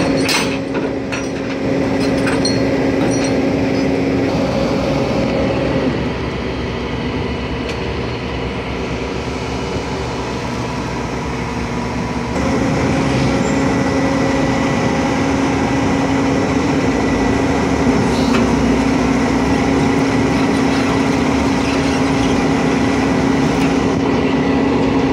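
Flatbed tow truck's engine and hydraulic winch running steadily as a car is pulled up the tilted bed. The drone drops in pitch about six seconds in and comes back up about twelve seconds in. A few metallic clinks come right at the start.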